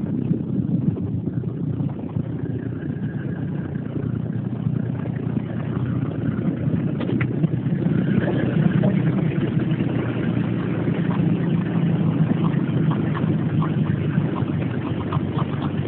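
1991 Chevrolet S10 pickup's engine idling steadily, with scattered light clicks over the running.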